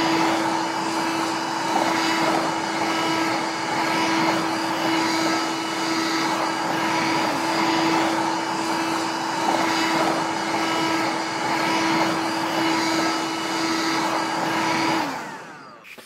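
Pink toy vacuum cleaner running with a steady whirring hum, which drops in pitch and stops about a second before the end.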